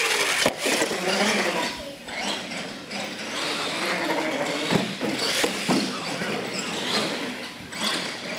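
Radio-controlled monster truck driving on a concrete floor, its motor rising and falling in pitch with the throttle. A sharp knock about half a second in as it lands from a jump, and a few more knocks later.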